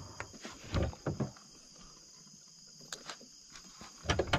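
A steady high-pitched chorus of night insects, crickets, chirring throughout. Over it come a few dull knocks and rustles, around the first second and again near the end, and two sharp clicks about three seconds in.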